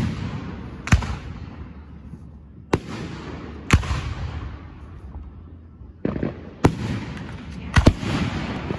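Aerial firework shells bursting overhead: sharp bangs every second or two, five or six in all with two close together near the end, each trailing off into a rolling echo.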